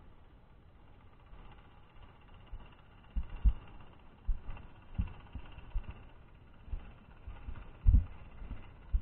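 Muffled, irregular low thumps and knocks picked up by an underwater camera housing, starting about three seconds in and loudest near the end, over a faint steady underwater hiss.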